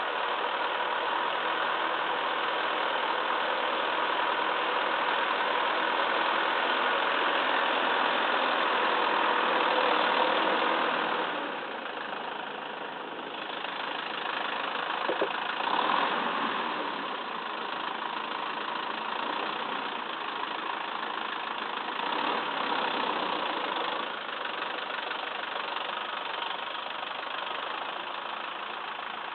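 Massey Ferguson 2635 tractor's diesel engine running under varying load. It is loudest through the first ten seconds, eases off about eleven seconds in, and picks up again briefly later, with a short squeal around the middle.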